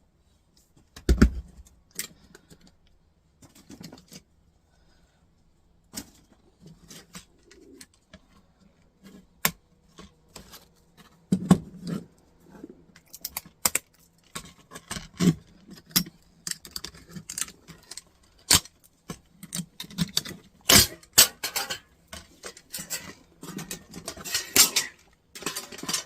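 Hand tools and small metal parts working on a Dell docking station: irregular clicks, taps and light metallic clinks as screws are taken out and the stainless steel plate is worked free. Sparse at first, getting busier in the second half.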